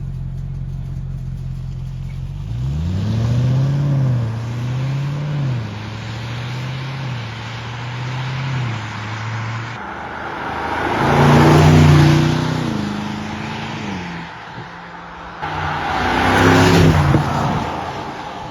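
BMW M850i's stock twin-turbo 4.4-litre V8 idling, then revved in two short throttle blips. Two louder surges of acceleration follow later, each rising and falling away.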